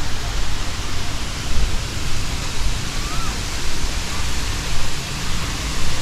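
Steady rush of a waterfall's falling water, with an uneven low rumble underneath.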